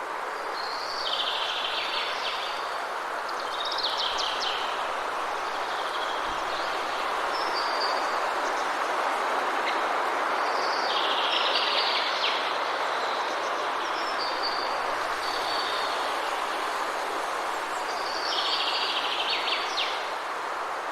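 Songbirds singing short trilled and whistled phrases, one similar phrase coming back about three times, over a steady rushing background noise.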